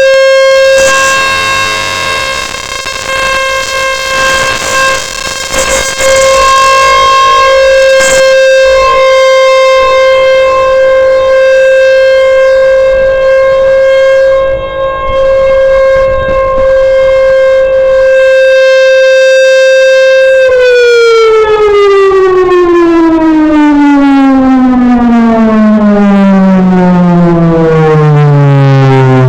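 Federal Signal Thunderbolt 1000 civil defense siren sounding its steady alert tone, loud enough to clip the microphone. About two-thirds of the way through the tone stops holding and the siren winds down, its pitch falling steadily.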